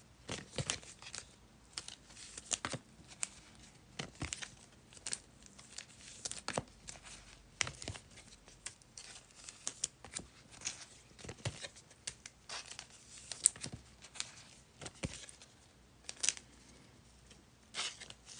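Packaging wrapper being torn open and crinkled: many short, irregular sharp rustles and crackles.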